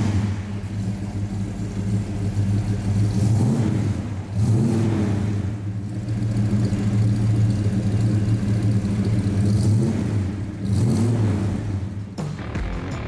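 1975 Ford XB Falcon GS sedan's V8 idling, revved briefly a few times, about three and a half seconds in, again a second later, and near the end. Music comes in over it in the last second or so.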